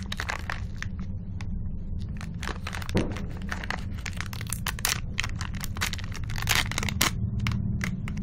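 Plastic wrapper of a chocolate cream wafer pack crinkling and crackling as it is squeezed and peeled open by hand, with many short sharp crackles, over a steady low hum.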